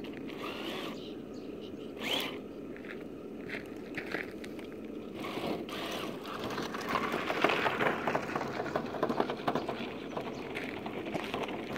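Scratch-built RC rollback tow truck driving over loose gravel: its tyres crunch and crackle on the stones, loudest as it passes close, about seven to nine seconds in.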